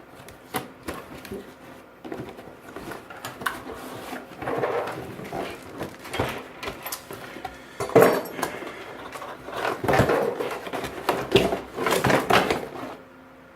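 A power supply's box and packaging being opened and handled: irregular rustling, scraping and clicks, with the loudest knock about eight seconds in.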